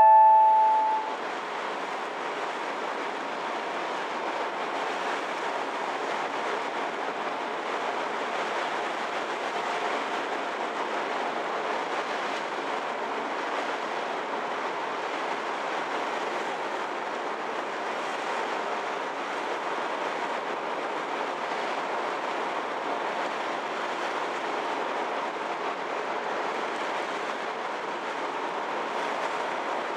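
Steady, even rushing noise of the ferry Kuniga under way, with no distinct beat or change. The last notes of a chime fade out about a second in.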